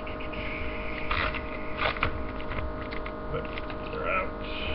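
Hands taking a trading card out of its packaging: a few short scraping, rustling handling sounds over a steady hum.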